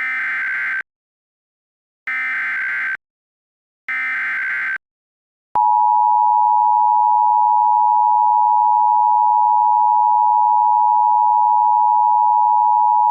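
Emergency Alert System signal: the SAME digital header sent as three short bursts of buzzy data tones about two seconds apart, then, about five and a half seconds in, the loud steady attention tone begins and holds.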